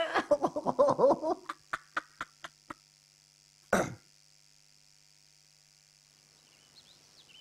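A man laughing, his laughter trailing off into a few short breathy huffs, then a single short throat-clearing about four seconds in. Faint bird chirps come near the end.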